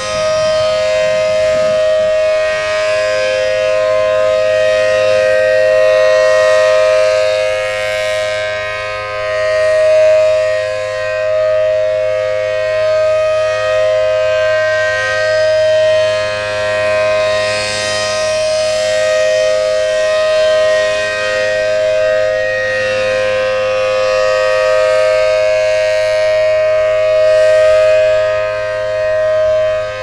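ACA Allertor 125 first-generation 10/12-port outdoor warning siren sounding its steady Alert signal: two steady tones at once, one from the 10-port and one from the 12-port side, swelling and fading every several seconds as the rotating head sweeps around.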